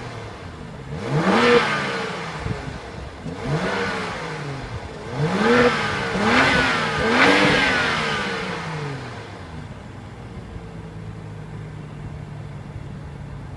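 BMW 535i's 3.0-litre twin-turbo inline-six heard from behind at the exhaust tips: idling, blipped about five times in quick succession with the pitch rising and falling back each time, then settling back to a steady idle.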